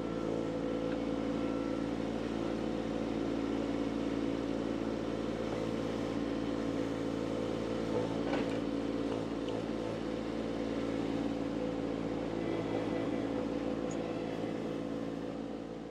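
Mini skid steer's engine running steadily at a constant speed, with one faint click about eight seconds in; the sound fades out near the end.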